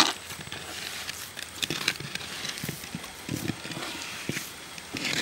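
Hands kneading a stiff rice-flour and gram-flour dough in a pot: irregular soft squelches and thumps, with a sharp knock right at the start.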